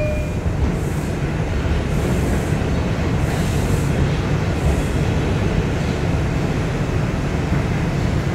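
A New York City Subway R142 car running at speed, heard from inside: a steady rumble of wheels and running gear on the rails, with a few faint hissing swells in the first half.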